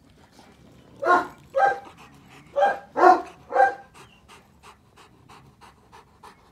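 Dogo Argentino giving five short vocal sounds in quick succession, then panting rapidly at about four breaths a second.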